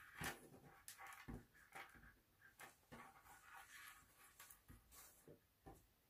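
Faint rustling and swishing of paracord being pulled and handled, with a few light ticks and taps.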